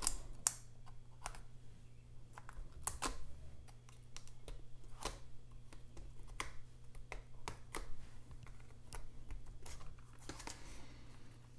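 Light, irregular clicks and taps of a pry tool and fingers against a MacBook Air's battery and aluminium case as the battery is worked loose and lifted out, over a steady low hum.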